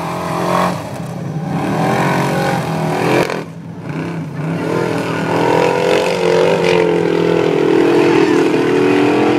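Formula Offroad hill-climb car's engine revving hard as it climbs a steep sand slope, the revs dropping briefly about three seconds in, then held high as it nears the crest.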